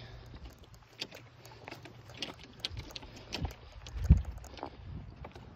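Golf clubs without head covers clattering in a carried golf bag, with footsteps and scattered clicks of handling. One heavy low knock about four seconds in is the loudest sound.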